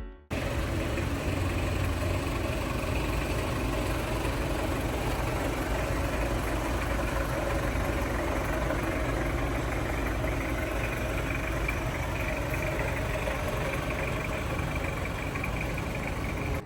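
Toyota Hilux Surf's 2L-T four-cylinder turbo-diesel engine idling steadily.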